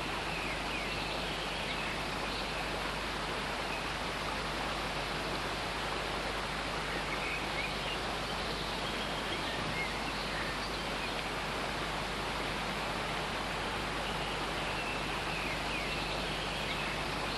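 Steady rushing of flowing stream water, unchanging throughout, with a few faint high chirps.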